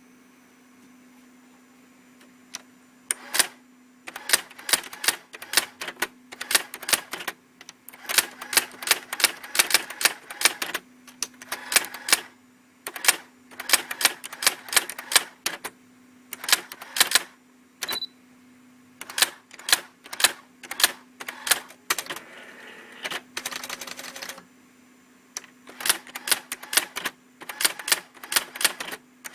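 Brother SX-4000 electric typewriter typing: runs of sharp key strikes in bursts with short pauses, over the machine's steady motor hum. A short whirring stretch comes about two-thirds of the way through.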